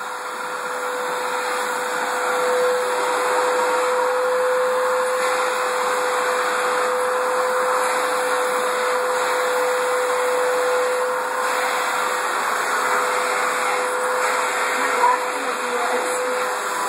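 Canister vacuum cleaner running steadily: a constant motor whine over a broad rush of airflow, growing a little louder over the first couple of seconds, with a brief knock near the end.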